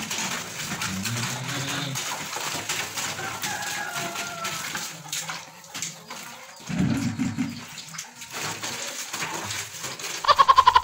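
Water splashing and sloshing in a plastic basin as clothes are scrubbed by hand in soapy water, with a louder low rumble lasting about a second midway. Near the end a loud, short, pulsed call sounds.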